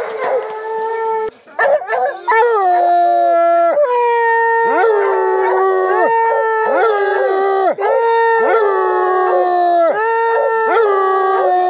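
Several hunting hounds bawling in long, overlapping howls at different pitches, each call dropping in pitch at its end, nearly continuous after a short break about a second in: the hounds striking, having caught a bear's scent.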